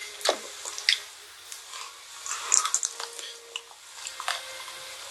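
Close-up biting and chewing of a Gugu Cone's wafer cone, a scatter of short crunchy crackles.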